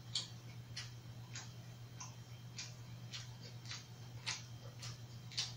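Chewing a mouthful of grilled pork belly: short crisp mouth clicks, about one every two-thirds of a second, over a steady low hum.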